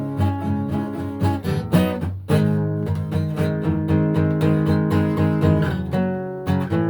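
Acoustic guitar playing, plucked notes and strummed chords, with a chord struck about two seconds in and left ringing for a few seconds.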